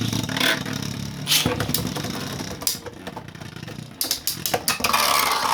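Two 3D-printed Beyblade spinning tops whirring and grinding against each other in a stadium, with repeated sharp clashes as they hit. Near the end a whirring pitch slides downward.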